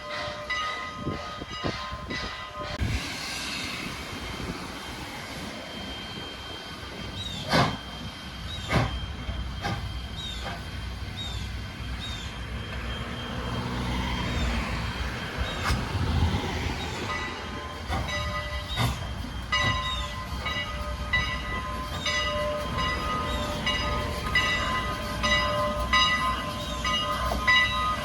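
A steam-hauled excursion train passing, with the rumble and repeated clicking of its wheels on the rails and a few sharp knocks. A steady chord of ringing tones sounds for the first few seconds and again through the last third.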